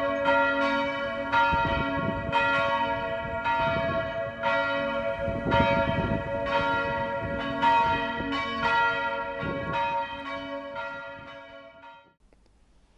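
Church bells ringing, several bells striking over and over so their tones overlap above a steady low hum, then fading away near the end.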